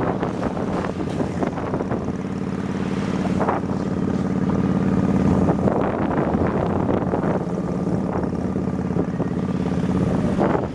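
Motorbike engine running at a steady speed while riding, under heavy wind buffeting on the microphone.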